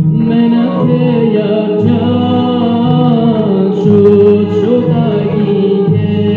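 Young male voice singing an Armenian folk song into a microphone, amplified over a backing track whose low accompaniment notes hold steady and change every second or two.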